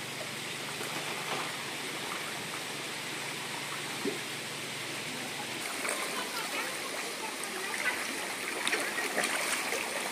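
Fast, shallow river water running steadily over a riverbed, with small splashes and plops that grow more frequent from about six seconds in as the crowded school of fish thrashes at the surface.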